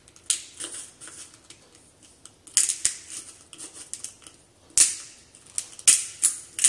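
Hand salt grinder being twisted, giving a string of short gritty crunches as the crystals are cracked. The crunches come in runs, sparse in the middle and louder and quicker near the end.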